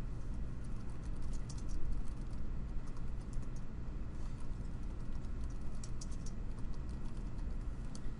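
Typing on a computer keyboard: irregular runs of key clicks over a low steady hum.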